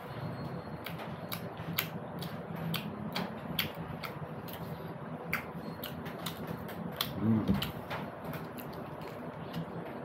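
Close-up eating sounds of a person chewing crisp fried jeri (jalebi) and puri: many sharp, irregular crackling clicks of chewing and mouth sounds, with a short low hum about seven seconds in.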